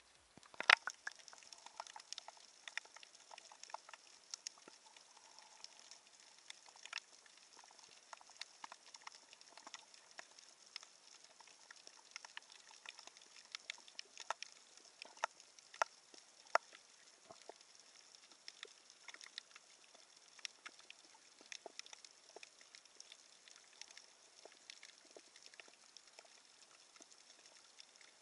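Underwater ambience of the sea: a dense, irregular crackle of sharp clicks over a steady hiss, one louder click near the start.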